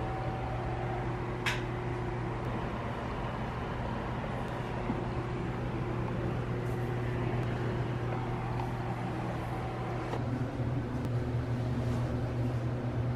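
Steady low hum of a ventilation fan, with a single sharp click about a second and a half in.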